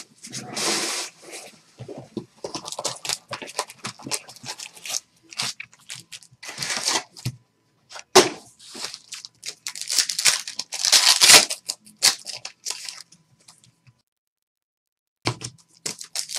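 Trading card pack wrappers being torn open and crinkled: a run of irregular tearing and rustling noises, with a pause of about a second near the end.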